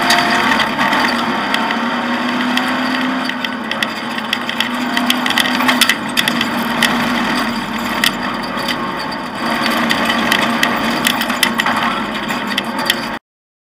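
Off-road rally car heard from inside the cockpit while driving on a dirt track: the engine runs under load beneath a dense stream of clicks and rattles from the stripped-out cabin and the rough surface. The sound cuts off suddenly near the end.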